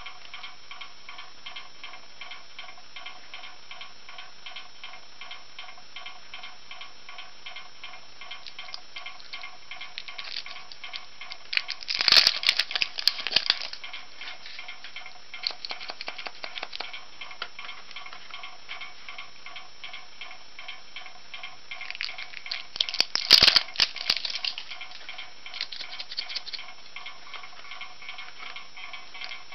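Clear plastic packaging crackling and clicking as surprise eggs are handled and pulled from their tray, in two spells of a second or two, about twelve and twenty-three seconds in. Background music with a steady ticking beat runs throughout.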